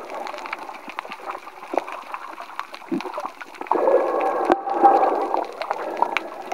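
Muffled water gurgling and sloshing around a camera held underwater, with scattered small clicks. It grows louder about four seconds in.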